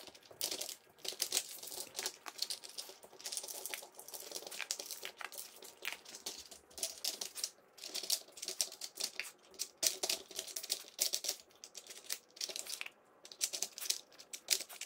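Plastic lids and sliding blocks of a Nina Ottosson Dog Brick puzzle feeder clattering as a dog noses and paws at them: a rapid, irregular run of small hard clicks and knocks.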